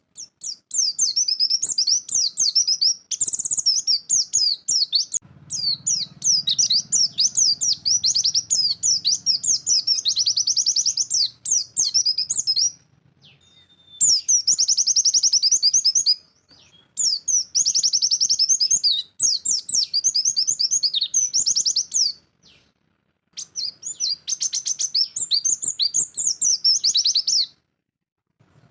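White-eye (pleci) singing a fast, rapid-fire chattering song in the 'nembak' style: dense, high repeated notes in bursts of two to seven seconds, broken by brief pauses. A faint low hum sits underneath for several seconds in the middle.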